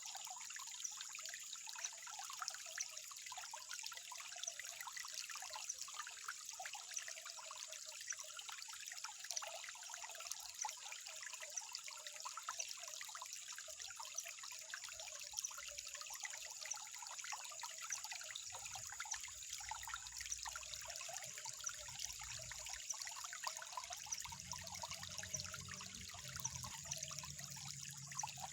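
Water trickling and bubbling steadily, as from a small stream or runnel. A thin steady high tone runs beneath it, and a faint low hum comes and goes in the second half.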